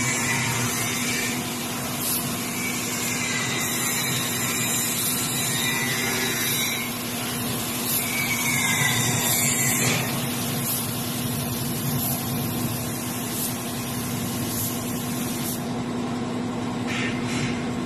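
Compressed-air paint spray gun hissing steadily as it sprays paint, over the constant hum of the air compressor running.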